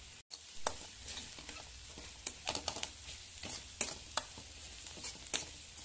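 Onions and spice masala sizzling in hot oil in a pan, while a spatula stirs them, clicking and scraping against the pan many times. The sound cuts out for an instant just after the start.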